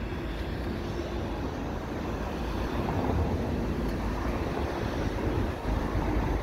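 Steady low rumble of distant trains, with a faint steady hum that fades out about five seconds in. The rumble grows a little louder about three seconds in.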